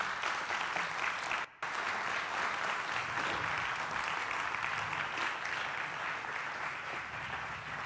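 Audience applauding steadily, with a brief gap about a second and a half in.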